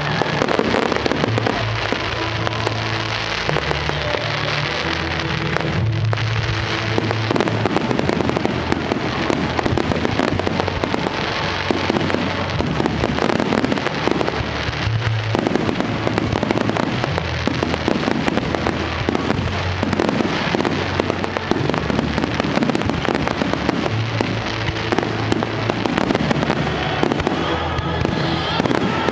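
Fireworks display: a dense, continuous stream of bangs and crackles as rising comets and shells burst, over a music soundtrack with a steady bass line.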